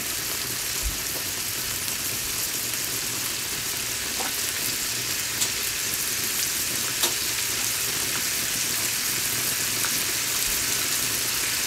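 Ground beef and Italian sausage sizzling steadily in a skillet, with a few small ticks a few seconds in.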